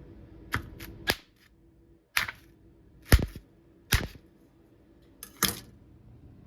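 A series of about seven sharp clicks and knocks, the loudest about three seconds in: a microwave oven's door and controls being handled as a frozen meal is put in to cook.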